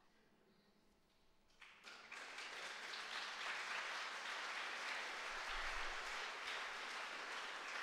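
Audience applauding. The clapping starts about two seconds in, after a short quiet pause, and then holds steady.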